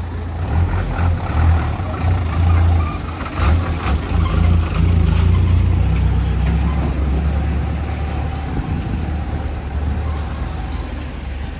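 A heavy road vehicle such as a truck or bus running close by, its engine a loud low rumble that swells and eases, with a short hiss about three and a half seconds in.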